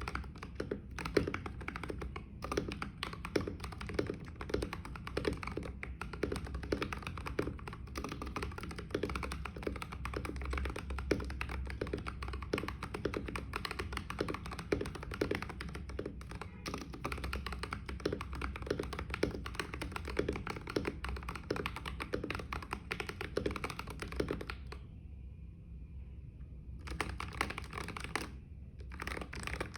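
Continuous typing on a NovelKeys NK65 Entry Edition mechanical keyboard with lubed Everglide Oreo tactile switches and XDA-profile PBT keycaps: a fast, dense run of keystrokes. The typing pauses for about two seconds near the end, then resumes.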